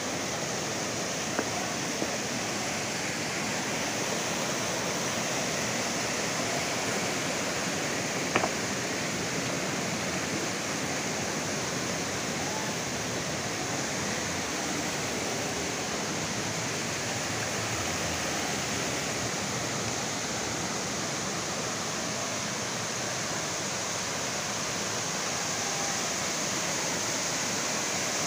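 Steady rushing of water from a rocky stream and waterfall, even and unbroken, with a single sharp click about eight seconds in.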